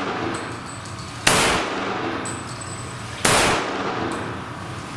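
Two pistol shots from a Ruger American in .45 ACP, about two seconds apart. Each echoes and fades, as slow aimed fire for an accuracy group. The fading echo of the shot just before is still heard at the start.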